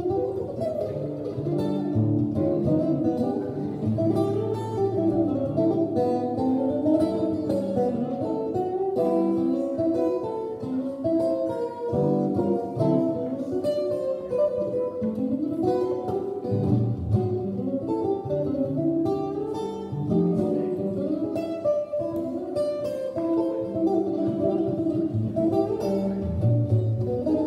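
Solo archtop guitar playing an instrumental passage: a steady stream of picked single notes mixed with chords.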